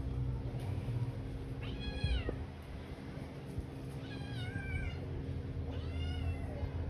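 Cat meowing three times, about two seconds apart, each meow rising and then falling in pitch, over a low steady hum.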